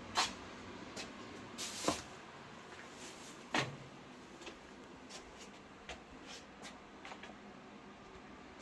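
Scattered knocks and clicks, as of things being handled or shut. A few sharper knocks and a brief rush of noise come in the first four seconds, then lighter taps.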